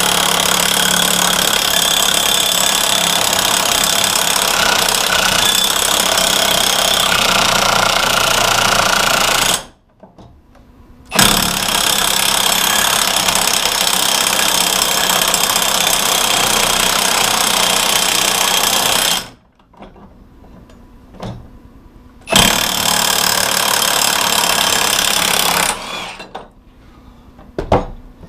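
Milwaukee M18 2763 half-inch cordless impact wrench hammering in three long bursts with short pauses between. It is working to break loose a one-inch bolt torqued to about 680 ft-lbs, and it takes a lot of work to get it off. A few sharp clicks near the end.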